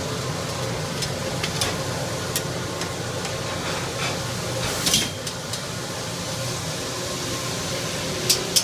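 Busy commercial kitchen: a steady rushing noise from the ventilation and lit gas burners, with scattered sharp clinks of metal pans and utensils, the loudest about five seconds in and a couple more near the end.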